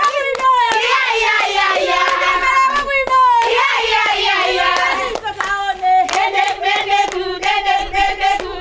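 A group of women singing together and clapping their hands, with the claps coming more often in the second half.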